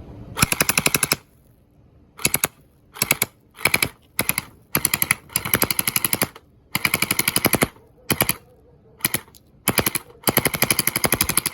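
Electric orbeez gel-ball blaster firing on full auto in about a dozen short bursts, each a fast rattle of shots at roughly a dozen a second, the longest burst near the end.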